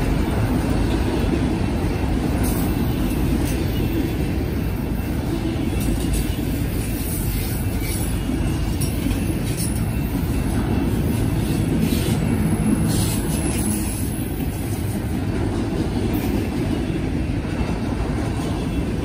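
Freight train cars rolling past on the rails in a steady, loud rumble, with a few brief high-pitched wheel squeals.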